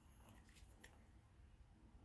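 Near silence: room tone, with a couple of faint ticks about half a second in.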